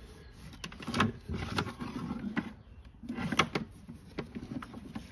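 A few scattered knocks and clicks from handling cables and fittings.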